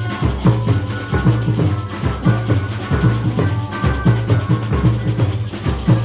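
A samba band playing live: deep surdo bass drums keep a steady pounding pulse under the percussion, with a melody line on top.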